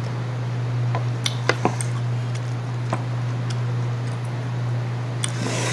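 A steady low hum, with a few faint crunchy clicks of green mango being chewed over it.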